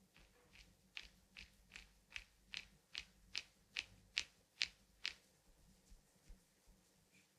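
Foot reflexology massage strokes on a bare foot, a soft rubbing swish repeated about two and a half times a second. They grow louder toward the middle and stop about five seconds in.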